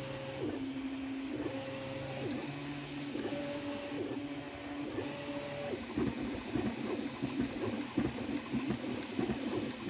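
Prusa Mini 3D printer printing: its stepper motors sing in steady tones that switch between a higher and a lower pitch about once a second as the print head traces straight lines. About six seconds in this turns to a rapid, irregular buzzing chatter of short moves.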